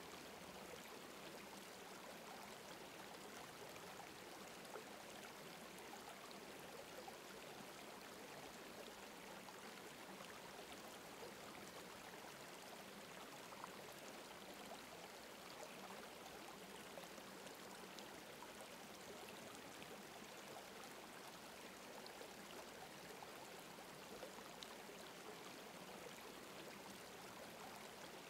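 Faint, steady running water, like a gentle stream, with small specks of trickle.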